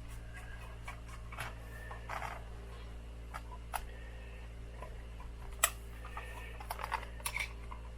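Scattered small clicks and taps of a hand tool working the screws of a small transceiver's front panel, the sharpest about five and a half seconds in and a few more near seven seconds, over a steady low hum.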